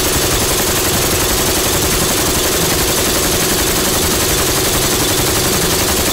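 RPK light machine gun firing one long, unbroken full-auto burst of 7.62×39 mm from a drum magazine, about eleven shots a second, as part of a 1000-round sustained-fire test.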